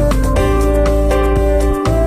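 Instrumental background music: held chords that shift about every half second, over a steady beat.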